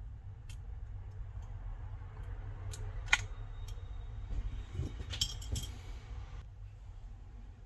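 A flathead screwdriver tip clicking and scraping against the broken rear camera lens glass of an iPhone 12 Pro Max as the shards are picked out. Small scattered clicks, one sharp click about three seconds in, and a quick cluster of clinks a little after five seconds.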